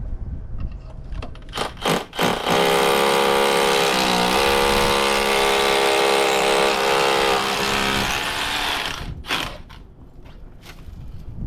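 Power drill motor running steadily for about six seconds, its pitch dipping briefly under load about a second after it starts, with a few knocks and clicks before and after.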